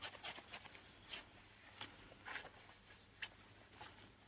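Faint, intermittent rubbing strokes of a cloth wiping sanding residue off a steel knife blade, over a low steady hum.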